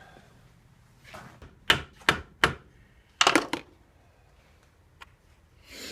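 Several sharp knocks during hands-on work: three single knocks in quick succession, then a short rapid flurry of knocks, with a fainter one near the end.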